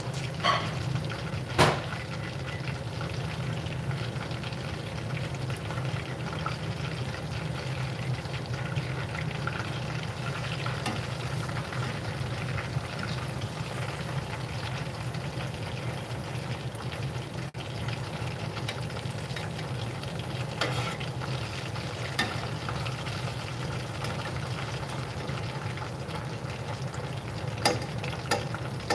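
Chicken thighs sizzling and bubbling steadily as they deep-fry in hot oil in a stainless steel saucepan, over a low steady hum. A few sharp clicks of metal tongs on the pot break in as the pieces are turned and lifted out.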